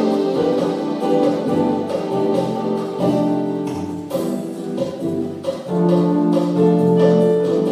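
Electronic keyboard played live: slow held chords with a melody on top, notes sustained about a second each, and a longer held chord near the end.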